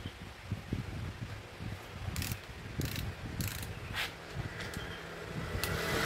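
Hand tool working on the front brake caliper's mounting bolts: irregular metallic ratchet clicks and small knocks, a dozen or so, with a rise of noisier tool sound at the very end.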